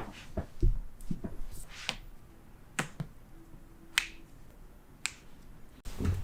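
Joints cracking and popping under chiropractic adjustments: several sharp, separate cracks, a second or so apart.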